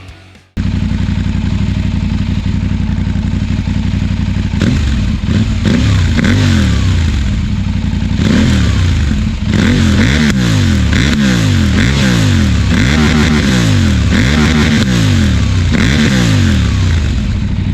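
KTM 790 Adventure's parallel-twin engine through an aftermarket Arrow exhaust: it idles steadily at first, then is revved up and let fall again over and over, roughly once a second.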